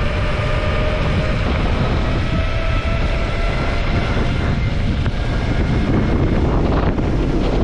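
Wind rushing over the camera microphone with mountain-bike tyres rolling fast on asphalt. A faint steady hum drifts slightly in pitch with speed. The sound cuts off suddenly near the end.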